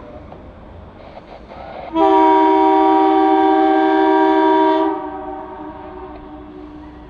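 Train air horn: one long, loud blast starting about two seconds in and lasting about three seconds, then sounding on more softly and fading away.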